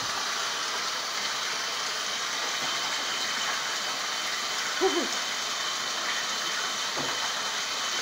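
Tap water running steadily into a bathtub, with a short call that bends in pitch about five seconds in.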